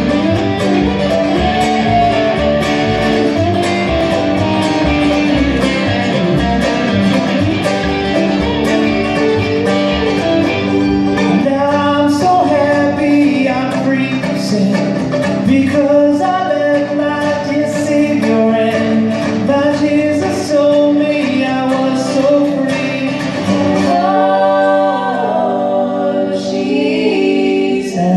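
Live country gospel band playing: an electric guitar picked in chicken-pickin' style over upright bass and fiddle, with singing over it from about halfway through.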